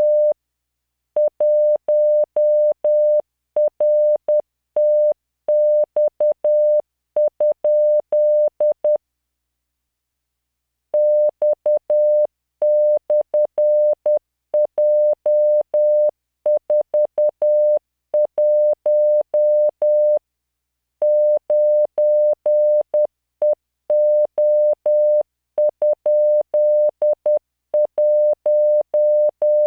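Computer-generated Morse code practice tone at 600 Hz, keyed at 10 words per minute as short dots and longer dashes, sending five-character groups of random letters, numbers and punctuation. The keying stops for about two seconds near the first third and for about a second near the middle.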